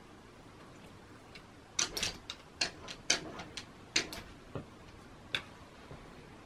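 A Shiba Inu's claws tapping and scraping on window glass as it rears up and paws at it: an irregular run of about a dozen sharp clicks that starts about two seconds in and lasts some three seconds.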